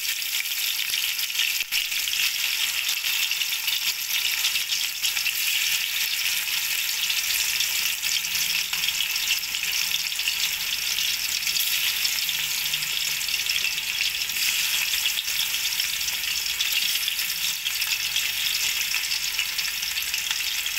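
Marinated chicken pieces deep-frying in hot oil in a metal pot: a steady sizzling crackle that holds even throughout.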